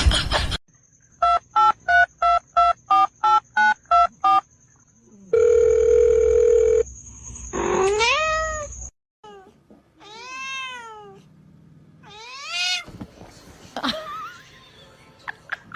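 About ten short, evenly spaced electronic beeps and a steady electronic tone, followed by a cat meowing several times with calls that rise and fall in pitch.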